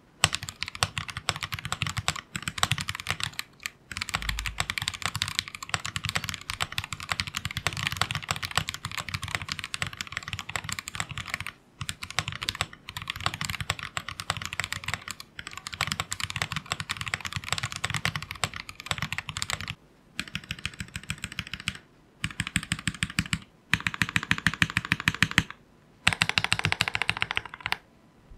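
Sound test of a Noir N2 Pro custom acrylic mechanical keyboard with a polycarbonate plate, typed on fast in a steady stream of keystrokes. A few short pauses break the typing.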